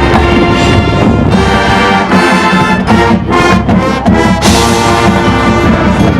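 High school marching band's brass section playing loud held chords in several short phrases.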